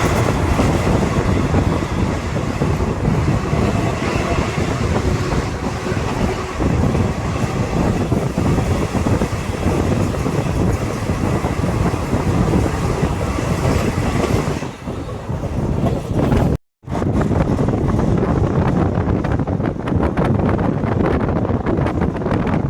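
Passenger express train running at speed: a continuous rumble with wheels clattering over the rail joints. The sound breaks off briefly about three-quarters of the way through, and the clatter is sharper after that.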